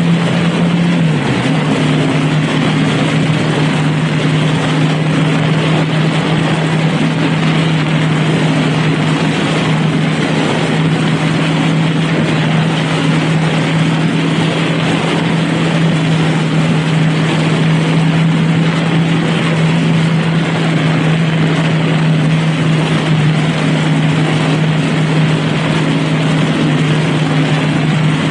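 Honda Rebel motorcycle engine running at a steady cruise, its note dipping slightly about a second in and then holding, under steady wind and road noise.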